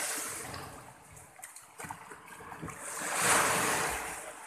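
Small waves breaking and washing up a sandy shore, one wash swelling to its loudest about three seconds in and then drawing back. A few faint clicks come in the quieter stretch before it.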